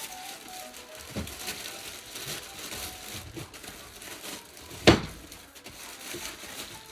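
Cuckoo clock's heavy cast iron weights being unpacked and handled: rustling and small knocks, with one sharp, loud knock about five seconds in.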